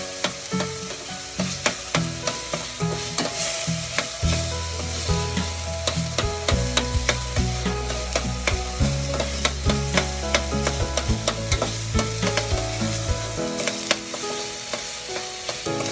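Chopped white onion sizzling as it fries in olive oil, with a utensil stirring it against the pan in many quick clicks and scrapes.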